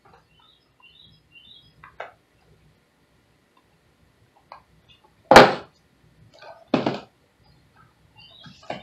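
A cardboard box knocked and bumped on a desk as it is grabbed and handled, with a loud thump about five seconds in and a second one about a second and a half later, between a few lighter taps.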